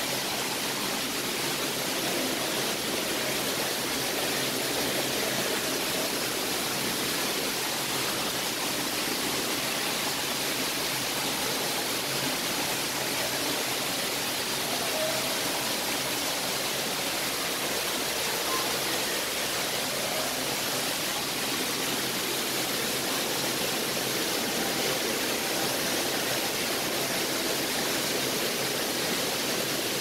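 Steady, even rushing noise like running water.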